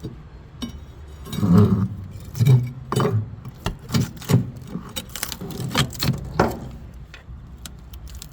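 Rotten exterior trim boards being pried off a boat: a string of irregular knocks and clinks of hand tools on wood and metal, with a few heavier thuds in the first few seconds.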